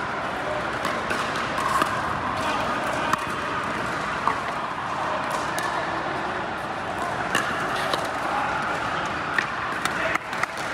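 Pickleball paddles hitting a hard plastic ball: sharp pops at irregular intervals a second or two apart, over a steady din of voices in a large indoor hall.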